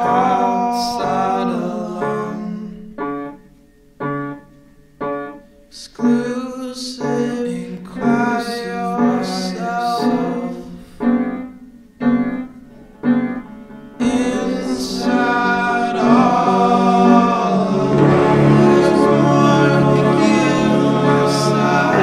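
Background song with piano and singing, in gently separated phrases at first, then fuller and continuous for the last third.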